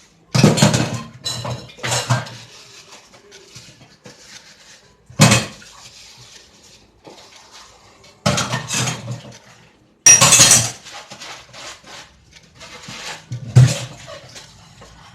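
Dishes and kitchen utensils clattering as they are handled and set down during washing-up: about six separate bursts of knocking and clinking, with quiet between them.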